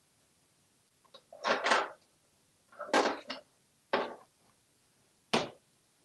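Plastic toys clattering in a plastic toy tool box and against the countertop as an African grey parrot rummages through them and pulls one out: four short bursts of clatter about a second apart.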